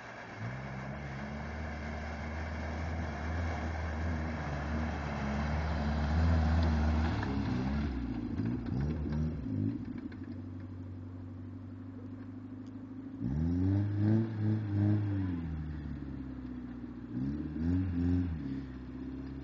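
Suzuki Samurai's engine pulling steadily under a loud rushing hiss of water and wind as it wades through a muddy pond. After about eight seconds the hiss drops away, and the engine revs up and down several times as it works through mud.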